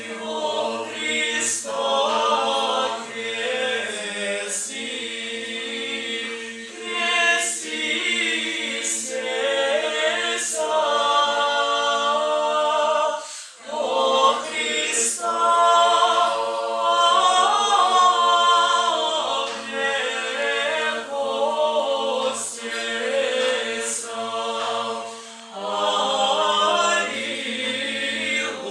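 Small mixed choir singing Orthodox church music a cappella in parts, with low voices holding long notes under moving upper voices. The singing breaks off briefly twice, about 13 seconds and 25 seconds in.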